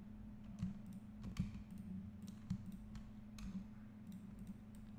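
Scattered clicks and taps of a computer mouse and keyboard, roughly one a second, over a steady low hum.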